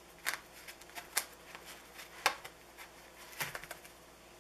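Handling sounds of fingers tying and tightening knots in thin thread around a wool puff silencer on a bowstring: a few sharp clicks about a second apart, with softer rustles between.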